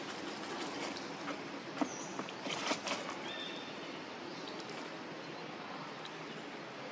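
Steady outdoor background hiss, with a short run of clicks and rustles about two seconds in and two brief high chirps.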